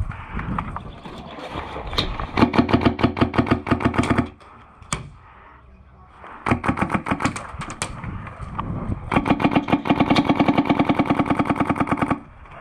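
Airsoft gun firing on full auto in three long bursts, the longest about three seconds near the end, each a rapid even run of shots over a steady mechanical whine.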